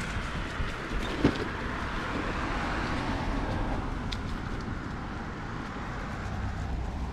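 A car passing on the road, its tyre and engine noise swelling and fading away, over a steady low wind rumble on the microphone. A short knock about a second in.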